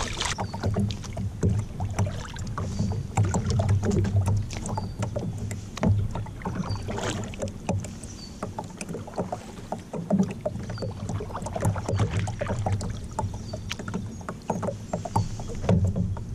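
Knocks, taps and rattles on a plastic pedal kayak's hull and fittings as the angler shifts about and stands up, over a low rumble.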